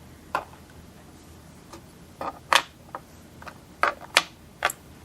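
Light clicks and taps of plastic pop socket parts being handled and set down on a work surface, about six sharp clicks at uneven intervals.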